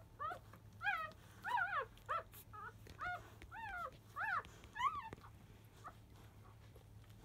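Five-day-old Labrador Retriever puppies crying while jostling to nurse: a run of about a dozen short, high squeals, each rising and falling in pitch. The cries stop about five seconds in.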